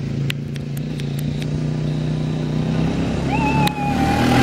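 Four-wheeler ATV engine running steadily as the quad drives across the grass toward the listener. There are a few light clicks in the first second and a half, and a long, high held tone comes in a little over three seconds in.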